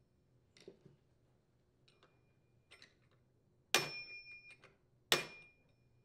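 Hammer striking a large flat-head screwdriver set against a chainsaw clutch to tighten it: two sharp metallic blows about a second and a half apart, each with a brief ring. A few faint clicks of metal parts being handled come before.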